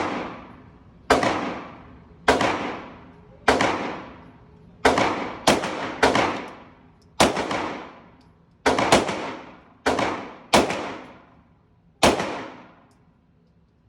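Firearm shots fired in a steady string, about a dozen at an irregular pace of roughly one a second, each trailing off over about a second.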